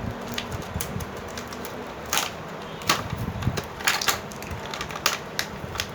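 Small plastic toy kitchen pieces and their packaging being handled: irregular light clicks and clatters with some rustling.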